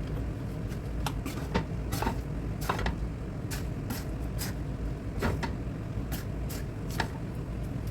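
Kitchen utensils clinking and scraping irregularly, a dozen or so sharp knocks, over a steady low rumble, as a large batch of fried rice is worked.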